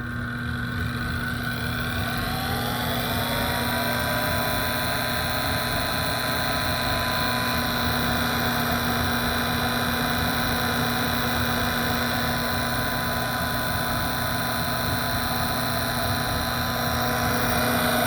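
Gas furnace draft inducer motor starting up, its whine rising in pitch over the first few seconds, then running steadily with a loud mechanical drone. It is very noisy, the sign of a worn motor that needs replacing.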